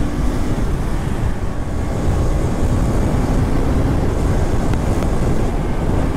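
Wind buffeting the microphone on a moving motorcycle, with the KTM RC 390's single-cylinder engine running steadily underneath at cruising speed.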